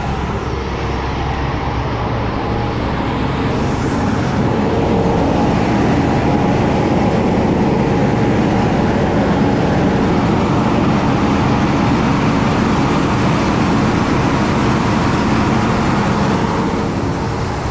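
Rice-milling machines running steadily, a dense mechanical din that gets louder about four seconds in.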